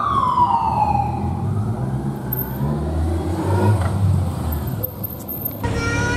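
Police motorcycle siren winding down in a falling sweep over the first second, then the low steady rumble of passing road traffic. The sound cuts abruptly near the end to another stretch where the siren begins a fresh sweep.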